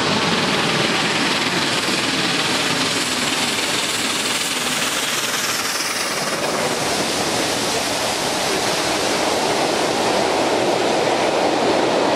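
Peppercorn A1 steam locomotive 60163 Tornado passing close below with its exhaust, then its train of coaches rolling past on the rails. A loud, steady rush of noise with no clear break, the coach wheels' rumble growing near the end.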